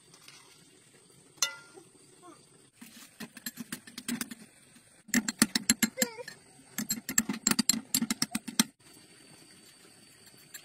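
A metal spoon clinking and scraping quickly against a ceramic bowl in two runs of taps, which stop shortly before the end, mixed with a toddler's small vocal sounds.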